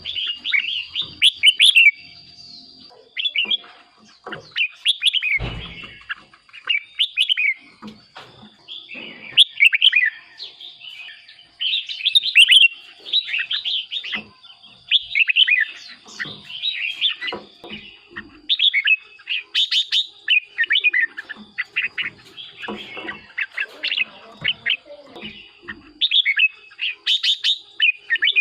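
Red-whiskered bulbuls singing: short, bright, warbling phrases, one after another with hardly a pause.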